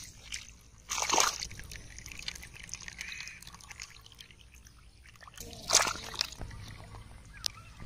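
Splashing and sloshing in shallow muddy water around a carp being caught by hand. There are two loud splashes, about a second in and just before six seconds, with quieter sloshing between.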